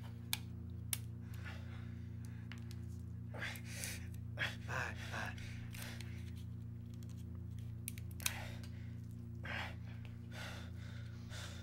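A man gasping and breathing hard while his wounded leg is dressed, with a few sharp clicks and a steady low hum underneath.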